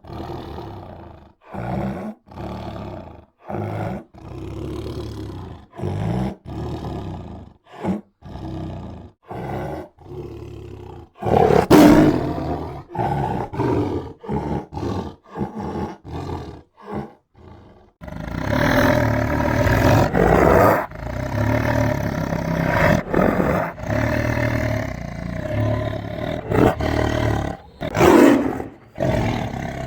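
Tiger roaring: a run of short, separate roars with brief silent gaps between them, then about two-thirds of the way through a denser, almost unbroken bout of roaring.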